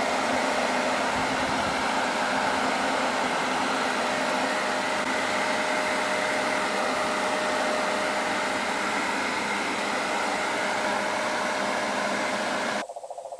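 Leaf blower running steadily at full power, forcing air up a long pipe extension into a roof gutter to blow out leaves and dirt. It is a steady rush of air with a motor whine, and it stops abruptly near the end.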